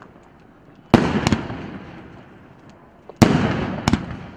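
A 19-shot firework cake firing: two loud bangs about two seconds apart, each followed a moment later by a smaller crack and a rumbling echo that fades away.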